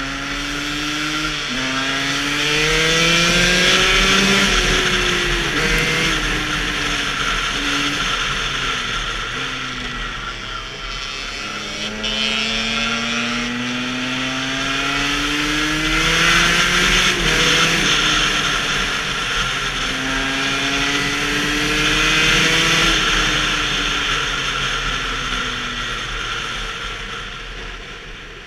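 A 125 cc two-stroke KTM enduro engine accelerating hard. Its pitch climbs, drops sharply at each gear change, climbs again, then falls away near the end as the throttle eases. Wind rushes over the helmet microphone throughout.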